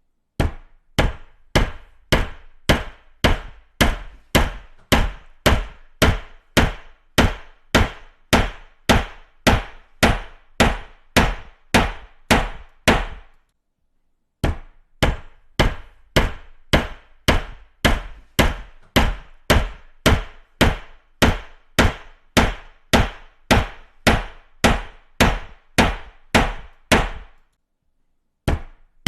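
A hammer striking repeatedly at an even pace of about two blows a second. The blows stop briefly about halfway through and again near the end.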